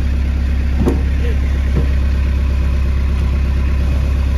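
Narrowboat's inboard diesel engine running steadily with a loud, low, even hum.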